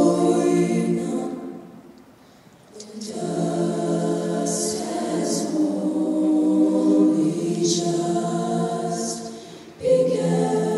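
All-female a cappella group singing in close harmony into handheld microphones, many voices layered with no instruments. The sound dies away about two seconds in, then the full group comes back in, with crisp hissing consonant hits on top now and then. It fades briefly again near the end before a loud re-entry.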